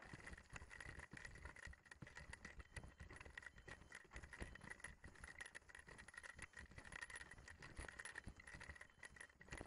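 Faint footsteps through long dry grass and the light, irregular rattle of a hang glider's frame and control-bar hardware as it is carried on foot.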